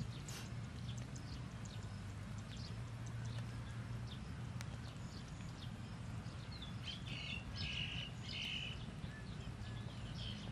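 Egg-and-meat omelette frying in oil in a pan on a portable gas stove: scattered small crackles and pops over a steady low hum.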